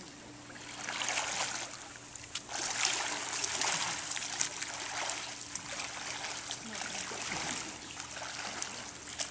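Water splashing from a swimmer's freestyle arm strokes, legs held still on a pull buoy, the splashes coming in repeated surges with each stroke.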